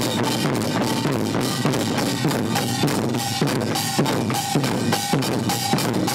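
An ensemble of Korean barrel drums (buk) beaten with sticks in a fast, driving rhythm, dense with strokes. From about halfway a short high ringing note repeats about twice a second over the drumming.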